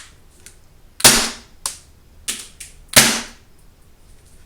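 Gas blowback airsoft Glock pistol firing two sharp shots about two seconds apart, with fainter clicks in between. It is being test-fired after reassembly and still works fine.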